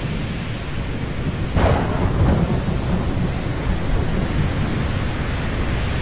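Thunderstorm: a steady low rumble of thunder over rain, with a louder crash about a second and a half in.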